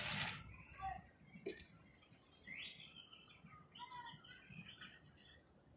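Faint chirping of small birds: a few short, high chirps around the middle, over quiet background noise. A brief rush of noise opens it.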